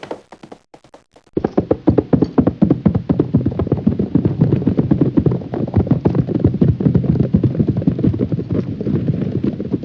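Hooves of several horses galloping: a dense, continuous run of hoofbeats that starts suddenly about a second in, after a short lull with a few faint knocks.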